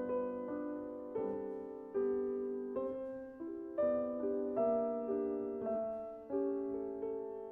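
Slow, gentle piano music: chords and single notes played softly, each struck and left to fade.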